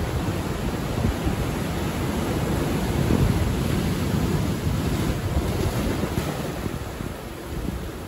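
Sea waves breaking against a rocky shore and washing up over sand in a steady rush of surf, swelling about three seconds in and easing toward the end.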